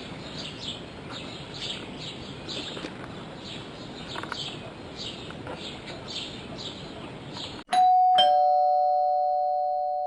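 Birds chirping over a steady background hiss, cut off abruptly near the end by a two-note doorbell chime, ding then dong, whose tones ring on and fade slowly.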